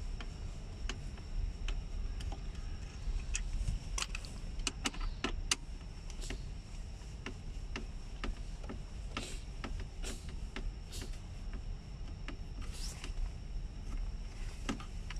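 Scattered small clicks and ticks of a screwdriver undoing the screws of a Mercedes-Benz W213 E-Class's center console panel, and of hands on its plastic trim, over a low steady hum.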